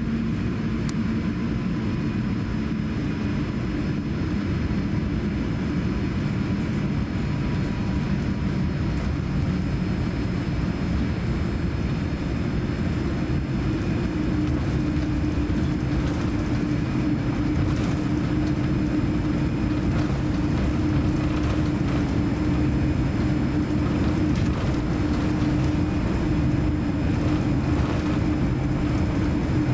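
Cabin noise of a Boeing 787-9 taxiing: a steady low rumble from its GEnx-1B engines at taxi power, with a humming tone that grows stronger and a little louder about halfway through.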